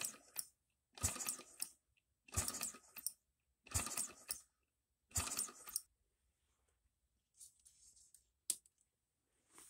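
Small three-stroke model gasoline engine being spun over by hand at the flywheel five times, each spin a brief clicking rattle of its linkage, without firing. One sharp click about 8.5 s in.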